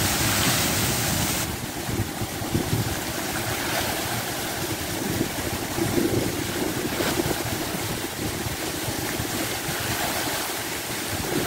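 Rows of fountain jets splashing down into a shallow pool, a steady rush of falling water with wind rumbling on the microphone. The bright hiss of the water drops to a softer splashing about a second and a half in.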